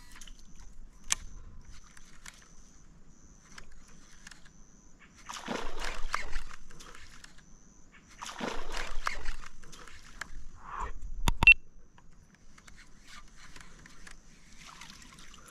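Water splashing and sloshing in two surges, about five and eight seconds in, each lasting a second or two, with one sharp click a little later.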